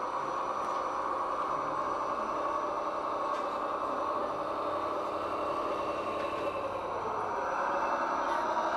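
Radio-controlled scale model trucks running, a steady whirring that gets a little louder and higher near the end.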